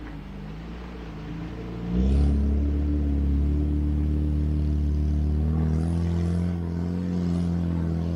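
4x4 off-roader's engine running, then revving up hard about two seconds in and holding under load as it pushes through a shallow river crossing, its note stepping a little higher a few seconds later.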